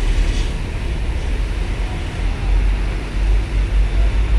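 A car engine running at low speed as the car reverses out of a toll-gate lane, over a heavy, steady low rumble. A brief hiss comes about half a second in.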